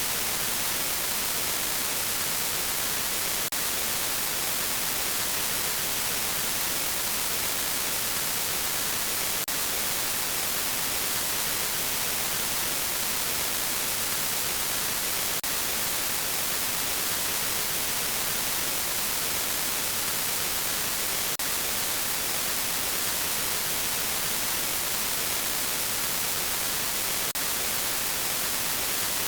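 Steady static hiss, strongest in the treble, with a faint click about every six seconds.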